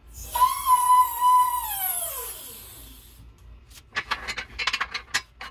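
Steel bed of an H-frame shop press being adjusted: a long squeal, steady and then falling in pitch, followed near the end by a quick run of metal clanks.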